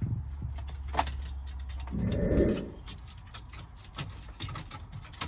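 Plastic dashboard trim being handled and fitted: scattered light clicks and rattles, a sharp click about a second in, and a louder rustling knock about two seconds in. A low steady hum underneath fades after that.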